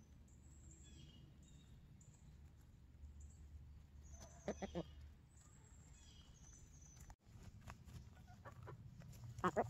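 Backyard hens clucking softly while foraging: a short run of clucks about halfway through and a louder few near the end. Thin high chirps of wild birds sound behind them over a steady low rumble.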